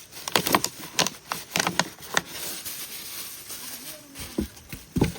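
A run of sharp, irregular cracks and knocks for about the first two seconds, then a heavy low thump near the end.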